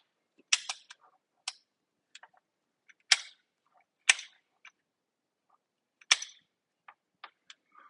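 Irregular sharp plastic clicks and taps from parts of a partly disassembled Nerf Rival Hera blaster being handled, the loudest about three, four and six seconds in.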